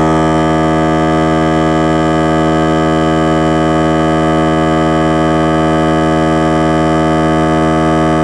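Central Pneumatic 3-gallon, 1/3-horsepower electric air compressor running steadily and loudly, pumping up its tank. Its pitch holds constant throughout.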